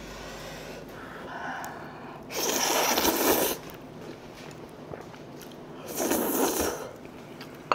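A person slurping noodles: two long slurps, each about a second, the first a couple of seconds in and the second near the end.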